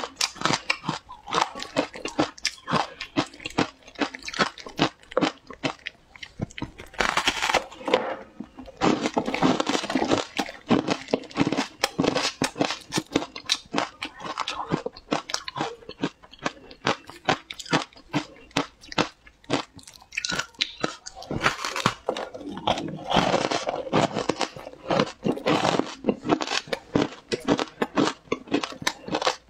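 Close-up crunching and chewing of frozen matcha shaved ice: a rapid, continuous crackle of ice breaking between the teeth, with clusters of louder bites.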